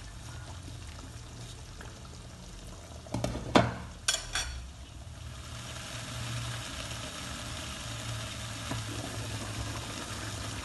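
Chicken curry simmering in a pan. About three seconds in, a glass lid is set down on the pan with a few sharp clanks, the loudest sounds here. After that a steady bubbling simmer carries on under the lid, over a low steady hum.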